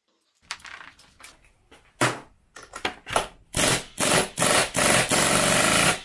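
Impact wrench rattling in a few short bursts and then a longer run, undoing the 19 mm nut on the drive pinion shaft of a Yamaha PW80 engine. A sharp knock about two seconds in comes before it.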